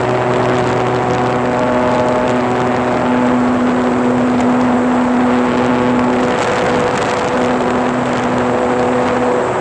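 RC model plane's motor and propeller running at a steady pitch, heard from the onboard phone with a heavy rush of wind over the microphone; the tone dips briefly about two-thirds of the way through.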